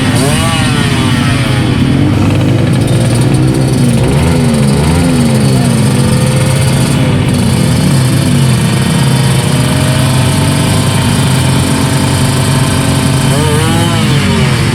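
Small horizontal-cylinder engines of vintage trail motorcycles running loudly, revving up and down repeatedly, with several engines overlapping in pitch.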